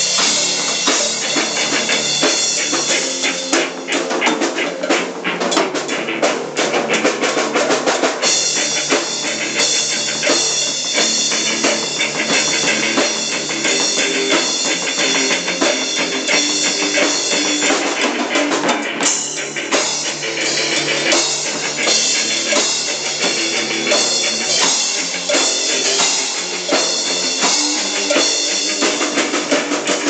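A drum kit and a hand-held cowbell playing together in a loose rock jam, the drummer keeping a steady beat with kick, snare and cymbals while the cowbell is struck along with it.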